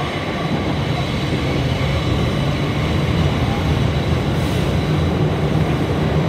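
New York City subway 1 train running at speed through a tunnel, heard from inside the car: a loud, steady rumble of wheels on the rails with a thin high whine over it, growing slightly louder.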